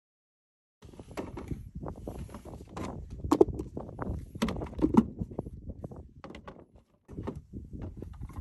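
A folding cutting-board drain basket of hard plastic and collapsible silicone being handled and popped open on a pickup's textured tailgate: a run of clicks, knocks and rubbing that starts about a second in, with two louder knocks about three and a half and five seconds in.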